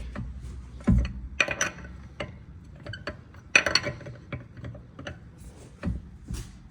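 Metal tools and parts clinking and knocking irregularly, with a louder thump about a second in and another about three and a half seconds in.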